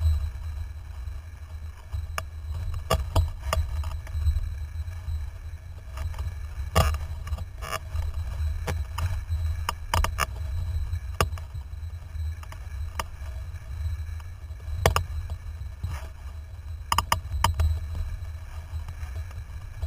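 Windsurfer under sail: a steady low rumble of wind and water against the camera on the rig, with scattered sharp clicks and knocks as the board and rig are jolted by the chop.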